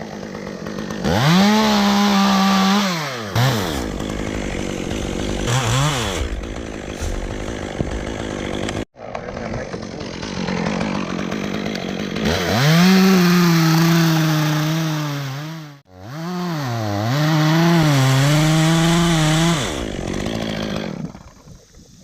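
Two-stroke chainsaw revving up to full speed and cutting, dropping back toward idle between cuts. It makes three long runs of a few seconds each and one short blip, and the pitch wavers under load in the later runs.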